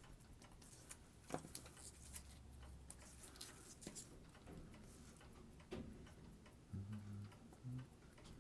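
Faint, irregular small clicks and taps of metal watchmaker's tools handling parts of a watch movement, over a low hum.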